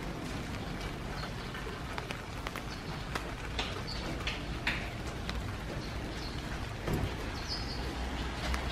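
Rain falling, with scattered drops ticking close by and a few short high chirps over a steady low rumble.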